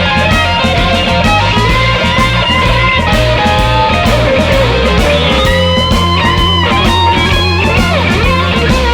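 Electric blues-rock band playing an instrumental break: a lead electric guitar plays bending lines over bass guitar and drums.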